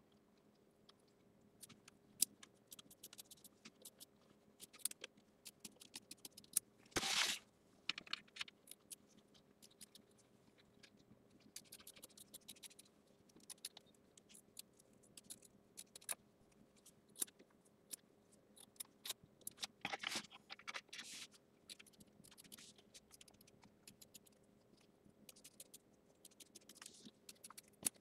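Scissors snipping excess quilt batting away close to a stitched line: many small, quiet snips and scrapes, with a couple of louder scraping passes, about seven seconds in and again around twenty seconds.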